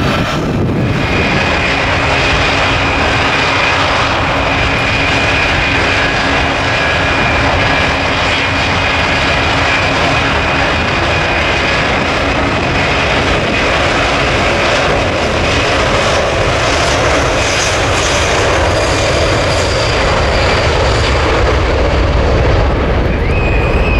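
The four Pratt & Whitney F117 turbofan engines of a C-17A Globemaster III transport running on the ground: a loud, steady rushing jet noise with a high steady whine over it.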